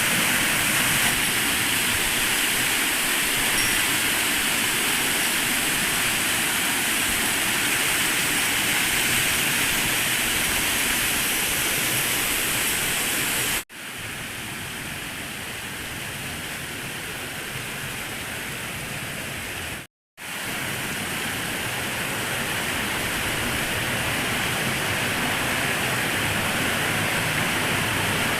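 Steady rushing of a waterfall. It cuts off abruptly twice, about halfway through and again about two-thirds through, and the stretch between the cuts is quieter.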